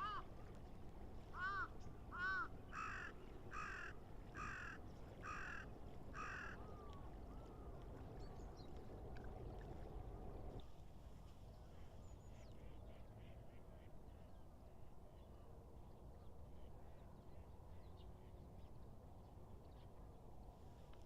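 A bird giving a series of harsh, repeated calls, about one every three-quarters of a second, for the first six seconds, over a low steady background hiss; after that only the background remains.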